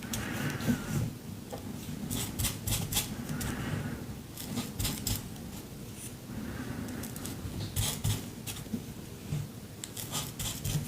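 Small pieces of dictionary paper being torn and handled: short, irregular crisp rustles and crackles.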